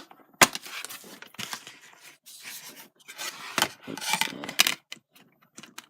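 Hands handling a plastic game disc, its case and the CD player: a few sharp plastic clicks, the loudest about half a second, three and a half and four and a half seconds in, with rubbing and scraping between them.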